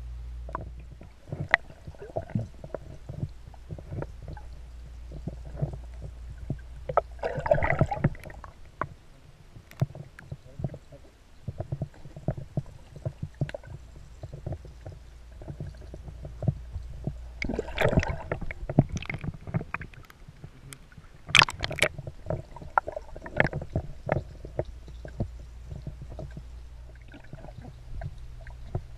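Muffled water heard underwater in a swimming pool: low gurgling and sloshing with many scattered small knocks and clicks, and a few louder bursts of splashing.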